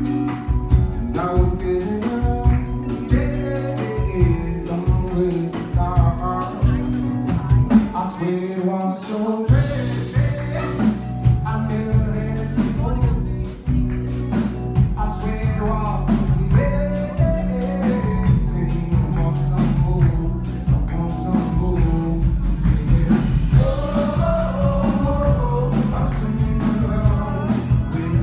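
A male singer-songwriter singing a song live over a steady beat and bass line. The bass drops out briefly about eight seconds in, then comes back.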